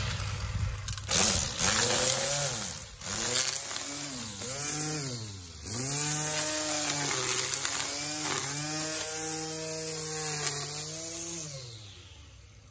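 Ryobi Electro Scorpion 525-watt electric string trimmer running, its motor pitch rising and dipping as the line cuts into grass, then holding steady. Near the end the motor winds down and stops.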